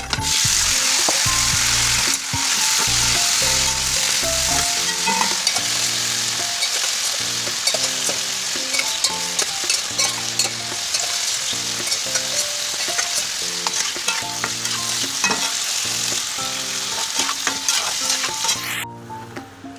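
Food sizzling as it fries in a pan, with frequent small clicks of stirring; the sizzle stops abruptly near the end.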